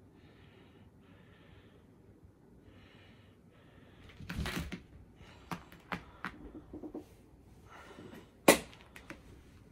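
A cat scrambling and pouncing after a laser dot. There are a few faint short scuffles at first, then a louder burst of scrabbling about four seconds in, a string of sharp taps, and one loud knock near the end.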